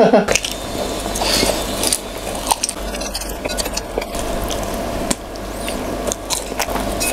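A person biting into and chewing a large sausage, wet squishing mouth sounds broken by irregular small clicks and smacks.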